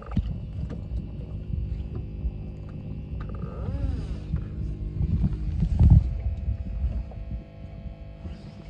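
Boat engine running steadily under a low rumble, with scattered knocks and a louder swell about two-thirds of the way through.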